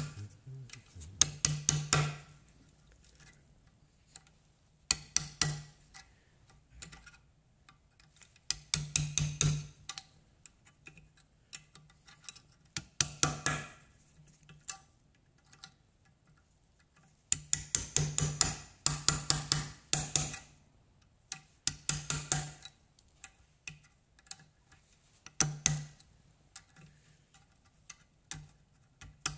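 Metal being hammered in about nine short runs of quick blows, each run a second or less long and carrying a low metallic ring. This is work to knock an old rear hub bearing out of a Suzuki LT50's hub.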